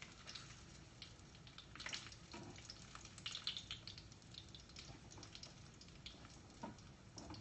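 Bacon grease sizzling faintly in a frying pan, with scattered small pops and crackles.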